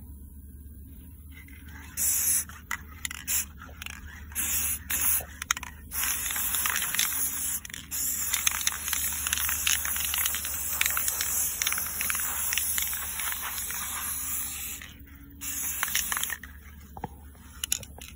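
Aerosol spray paint can hissing as it sprays a weight plate: a few short bursts, then a long spray of about eight seconds, then more short bursts near the end.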